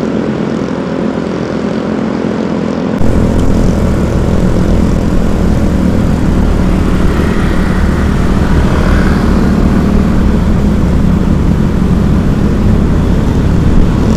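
A vehicle engine running steadily under road and wind noise. The sound gets suddenly louder about three seconds in.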